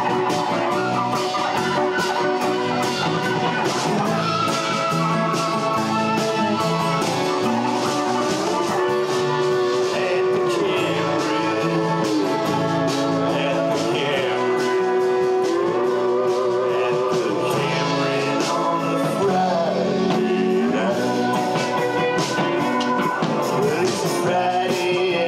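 Live folk-rock band playing a steady, upbeat number: strummed acoustic guitar, electric bass and a Nord Electro 3 keyboard over a regular beat, with a melody that slides up and down.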